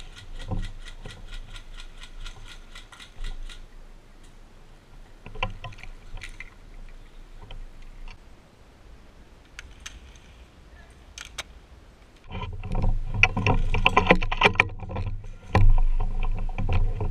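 Handling noise from a rifle-mounted camera: the rifle and gear rustle and knock as the carrier moves over grass and gets down low. A rapid, even ticking rattle runs for the first few seconds. The loudest part is a run of rustling and bumps in the last few seconds.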